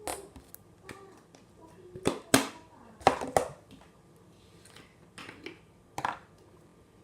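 Slime being worked by hand: a string of irregular sharp clicks and squelchy pops, about eight or nine in the first six seconds, the loudest a little after two and three seconds in.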